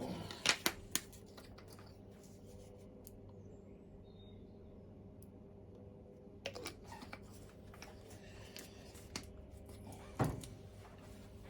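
Sharp clicks and knocks from handling the small metal parts of a Mamod SE1 toy steam engine while it is readied for another run: three quick clicks near the start, another cluster about halfway through, and one louder knock near the end, over a low steady hum.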